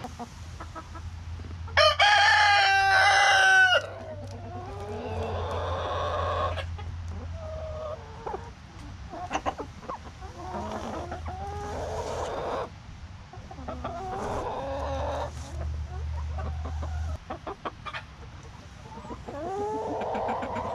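Flock of laying hens clucking and calling close up. A loud, drawn-out call about two seconds in is the loudest sound, followed by shorter calls and squawks every second or two.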